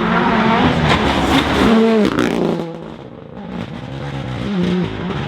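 Rally car engine at full throttle, dropping away sharply about two and a half seconds in as the driver lifts off, then revving back up and pulling hard again.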